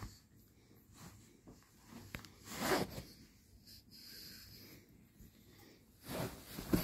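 A pug breathing noisily through its nose in two short bursts, one about a third of the way in and a louder one near the end.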